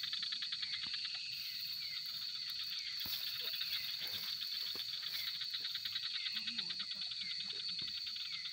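Steady night chorus of insects, a high rapid trill, with a short falling call repeating about once a second over it.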